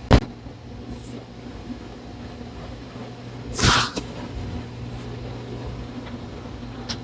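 A single sharp crack from a chiropractic adjustment of a spinal joint, right at the start. A little over three seconds later comes a short hissing burst, over a steady low room hum.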